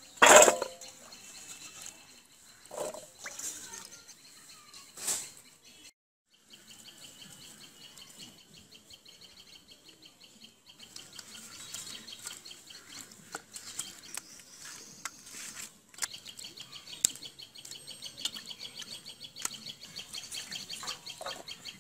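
A splash of vegetable stems and water in a steel bowl about half a second in. Then a steady run of rapid chirping from small birds, which gets louder about halfway through.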